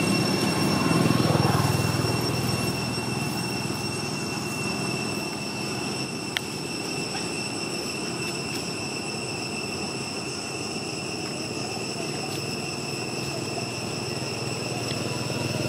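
Low rumble of a passing vehicle engine, louder at the start and again near the end, under a steady high-pitched whine, with one sharp click about six seconds in.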